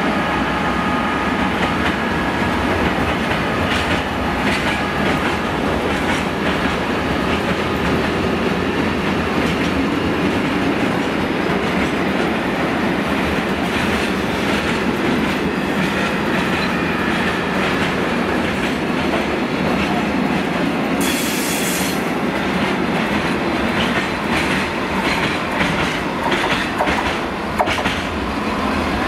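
Long freight train of covered wagons rolling past behind a Class 66 diesel locomotive: a steady rumble of wagon wheels with clickety-clack over rail joints. The locomotive's engine note fades in the first few seconds. A brief hiss comes about three-quarters of the way through.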